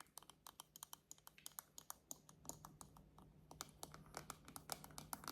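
Fingernails tapping on the back of a hairbrush: quick, light, irregular clicks, several a second.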